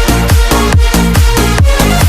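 Electronic dance music with a steady kick drum beating about twice a second under sustained synth tones.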